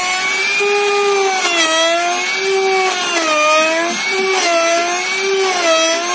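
Electric trim router cutting a slot into the edge of a wooden board with a straight bit. Its high motor whine dips in pitch and recovers about four times as the bit takes load in the wood, over the hiss of chips being thrown.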